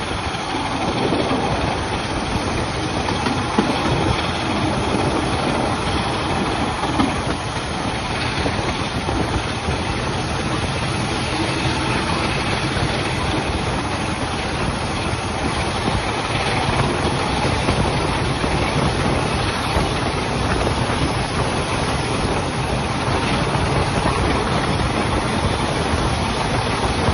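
Class 45 'Peak' diesel locomotive's Sulzer 12LDA28 engine running as it hauls the train, heard from an open coach window together with the wheels rolling on the rails and a steady rush of passing air.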